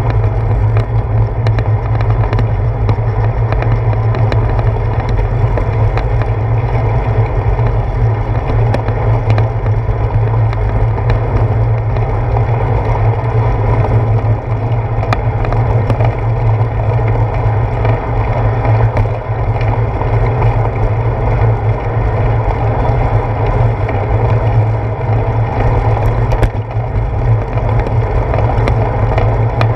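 Bicycle riding on a wet paved path, heard through a handlebar-mounted action camera: a steady loud low rumble of wind and road vibration with tyre noise, and scattered small clicks and knocks from bumps in the path.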